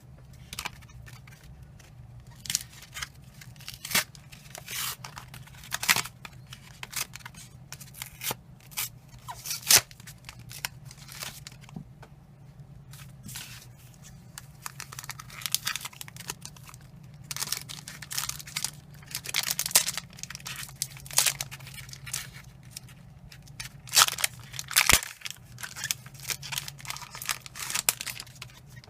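Foil wrappers of Pokémon booster packs being torn open and crinkled: many short, irregular rips and rustles.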